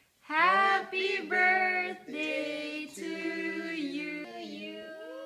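A few voices singing a song together in long held notes, a man's among them.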